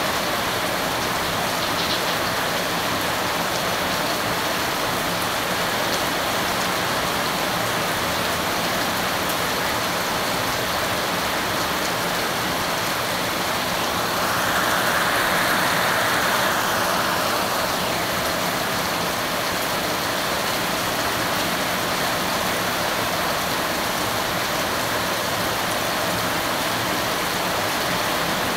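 Heavy rain pelting a wet paved alley and splashing into the water covering the ground, a steady hiss that swells a little louder about halfway through.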